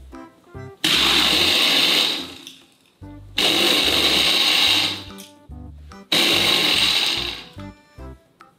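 Countertop blender pulsed three times, each run about a second and a half long, starting abruptly and winding down, as it blends cola with ice toward a slush.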